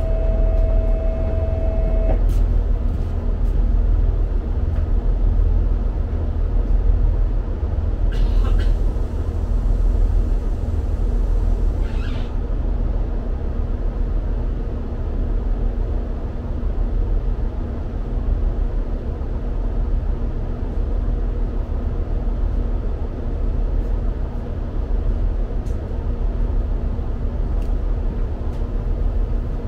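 Diesel multiple unit idling while stopped at a station, a steady low engine rumble heard from inside the carriage. A steady tone sounds for the first couple of seconds, and there are two short hisses of air about 8 and 12 seconds in.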